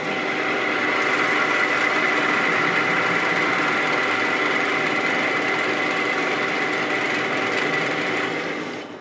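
Monarch engine lathe taking a heavy facing cut with a carbide insert: 250 thou depth of cut at 7.5 thou per revolution, just under 300 RPM. A steady cutting and gear noise with a high steady whine, with the machine not straining ("cruising"); it falls away near the end as the cut finishes.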